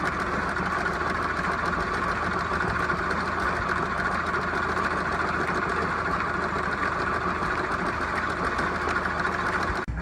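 An engine running steadily at idle, cut off abruptly near the end.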